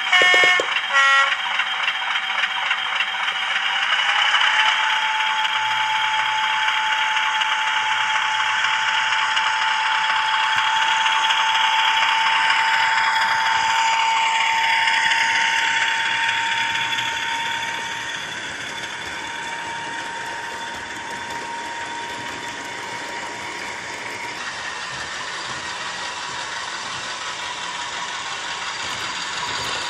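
Hornby Class 50 model locomotive's DCC sound decoder playing diesel engine sound through its small onboard speaker, mixed with the rattle of the model running on the track. A steady whine steps up in pitch about four seconds in, and the sound eases a little later on.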